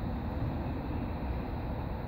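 Wind buffeting the microphone: a low, uneven rumble with no distinct mechanical tone.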